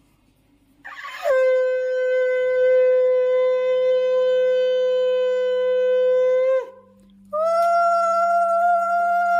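Conch shell (shankha) blown as a puja call in two long, steady notes. The first starts about a second in and holds for over five seconds before dropping off. The second, a little higher, starts about seven seconds in and is still sounding at the end.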